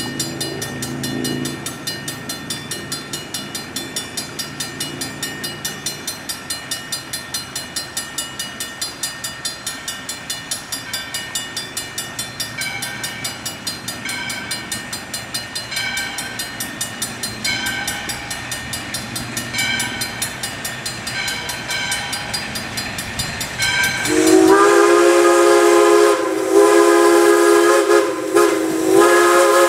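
A grade-crossing signal bell rings steadily with evenly repeating strokes as a steam train approaches. About 24 seconds in, the locomotive's chime steam whistle blows several long blasts for the crossing, much louder than the bell.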